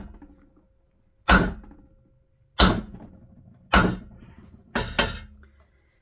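Hammer blows on metal, five strikes about a second apart, the last two in quick succession, each ringing briefly. A stuck fitting on a potter's wheel is being bashed to free it.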